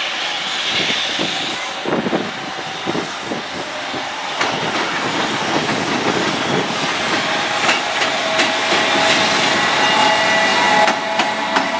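JR Freight EF210 electric locomotive and its container wagons rolling slowly over points and rail joints. The wheels clack in a quick run of knocks, then the sound settles into a louder steady rumble with a thin whine and further clacks near the end.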